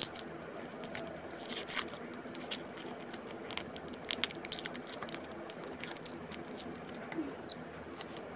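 Light scrapes, crunches and clicks of garlic being handled and prepared, over a steady low hum.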